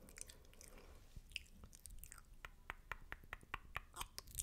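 Wet, spitty mouth sounds close to the microphone for an ASMR 'spit painting' trigger: a string of quick smacks and clicks, sparse at first and then about four or five a second in the second half.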